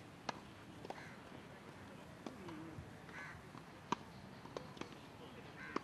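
Tennis balls struck by rackets and bouncing on grass: scattered sharp pops, the loudest about a third of a second in and again about four seconds in, with faint calls in the background.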